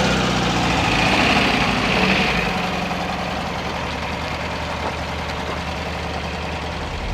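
A car engine idling, fading about two and a half seconds in to a quieter, steady background noise.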